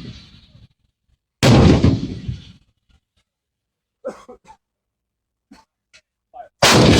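105 mm howitzer fire: the end of one shot fades away in the first half second. Another sharp blast comes about a second and a half in with a fading rumble, and a third blast comes near the end. A few faint knocks fall in the lull between.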